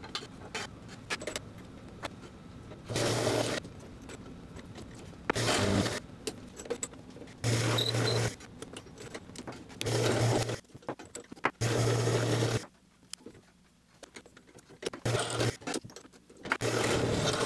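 Drill press drilling a set-screw hole in a mild steel part in several short bursts, each about half a second to a second long with a steady motor hum under the cutting noise. Between the bursts, metal clinks and scrapes from handling the vise and the chuck.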